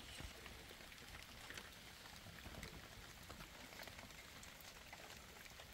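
Near silence: faint background hiss with scattered light ticks.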